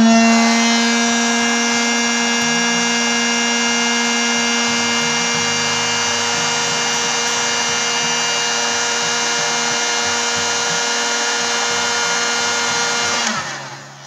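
Heat gun (hot-air gun) running: a steady motor whine with a rushing hiss of air, still rising in pitch as it spins up at first. It is switched off about a second before the end and its pitch falls as it winds down.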